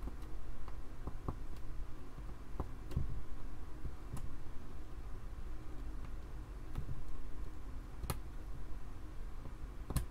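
A handful of small, sharp clicks and ticks, loudest about eight seconds in, as crimped ribbon-cable pins are worked and pressed into a plastic connector housing, over a steady low hum.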